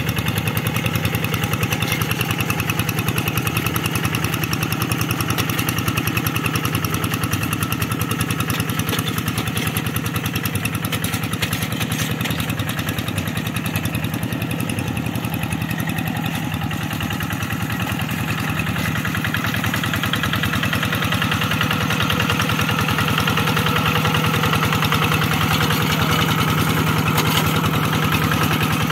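Kubota diesel engine of a two-wheel hand tractor running steadily with rapid, even firing pulses while it pulls a plough through a flooded rice paddy. It grows slightly louder in the second half.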